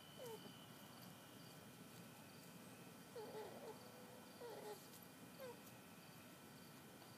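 A puppy whimpering faintly, a few short falling whines, two of them close together near the middle, over steady insect chirring.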